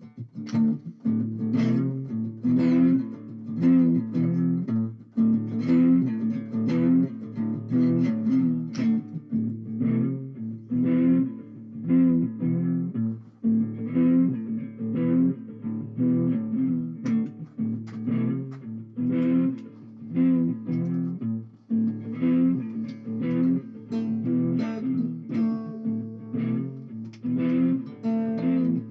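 Guitar music with a steady strummed rhythm, about two strokes a second.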